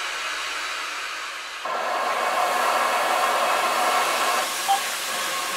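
Steam locomotive No. 825, a Southern Railway S15 4-6-0, hissing steadily as steam blows from its open cylinder drain cocks. The hiss jumps louder about a second and a half in.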